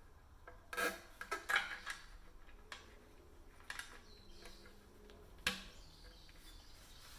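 A tubeless valve stem being fitted into a road bike rim by hand: rubbing and scraping of the valve and rim with several sharp clicks and knocks, a cluster of them in the first two seconds and one more about five and a half seconds in.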